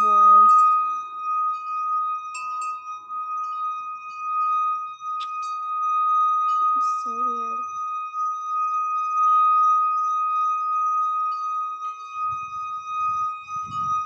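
An unexplained steady, high-pitched droning hum with fainter overtones, likened to a plane engine though nothing is flying overhead. Low rumbling thumps join it near the end.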